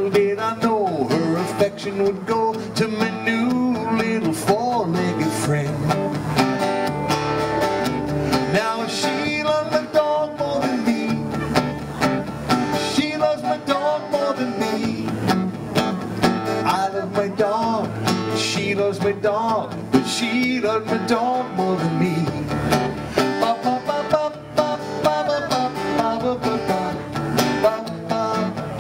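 A man singing to his own acoustic guitar playing, a live solo song with voice and guitar together.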